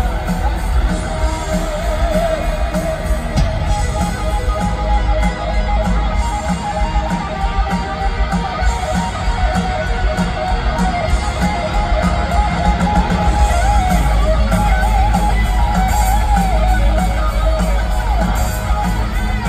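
Heavy metal band playing live and loud: distorted electric guitars, bass and drums, with a wavering lead guitar line on top. It is heard from within the crowd.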